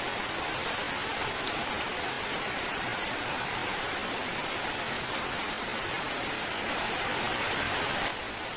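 Rain falling steadily, a dense, even hiss of many drops; it grows a little louder and then turns suddenly quieter near the end.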